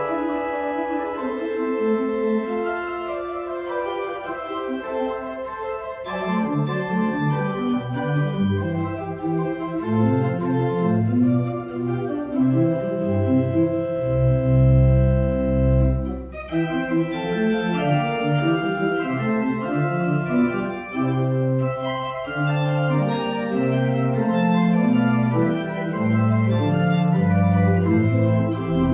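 Organ music: held chords over a moving bass line, with very deep pedal notes about halfway through and again near the end.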